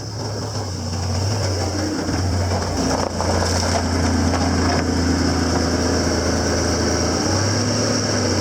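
A vehicle engine running steadily, getting louder over the first couple of seconds.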